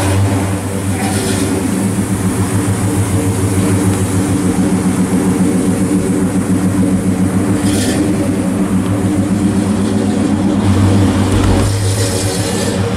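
Pontiac GTO Judge's V8 exhaust running at a steady idle, the bass deepening near the end as the car pulls away.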